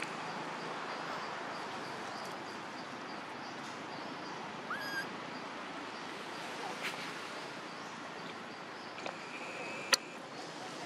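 Steady forest background hiss with faint repeated high ticking over the first few seconds. A single short rising call comes about halfway through, and a sharp click near the end is the loudest sound.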